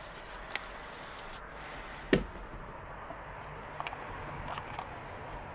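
Small clicks and taps of a drill bit being taken out of a cordless drill and a red plastic drill bit case being handled during a bit change, with one louder knock about two seconds in.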